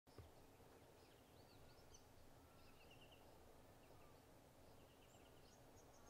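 Faint bird calls: scattered short, high chirps and two brief rapid trills, over a low, steady background rumble.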